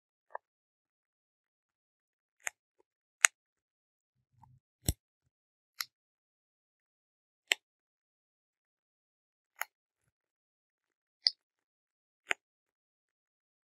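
Bubble wrap bubbles popped one at a time between the fingers: about nine sharp pops, irregularly spaced a second or two apart, with silence between them.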